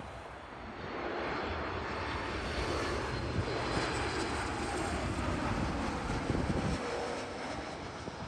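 Boeing 737 jet airliner on final approach passing low overhead: the steady rumble and whine of its twin jet engines swells about a second in, is loudest around six seconds in, then fades as the plane moves away toward the runway.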